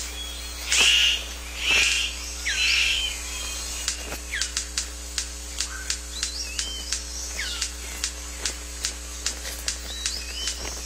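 Male superb bird of paradise displaying: three harsh, rasping calls in the first three seconds, then a steady run of sharp clicks, about three or four a second, through the rest. Whistled calls of other birds come and go behind them.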